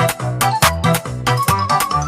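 Upbeat background music with a steady beat, bass line and a bright melody.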